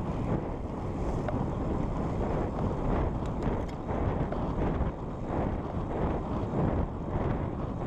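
Wind rushing and buffeting over a camera microphone on a road bicycle riding at speed, a steady low rumble with a few faint ticks about three seconds in.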